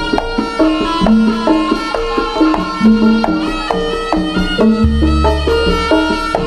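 Javanese jaranan ensemble playing: a steady stepping melody over hand-drum and percussion strokes, with a deep low boom lasting about a second about five seconds in.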